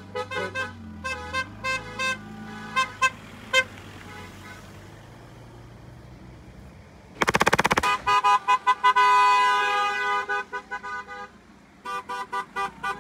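Car horns honking in repeated short toots, which die down for a few seconds. About seven seconds in comes a rapid stuttering blast, followed by a longer run of overlapping honks and more short toots near the end.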